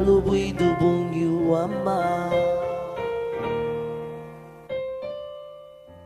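Music with held notes that thin out and fade away toward the end.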